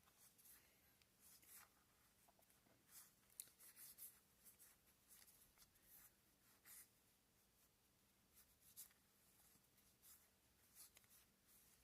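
Faint, irregular papery swishes of trading cards being slid and flipped over one another by hand.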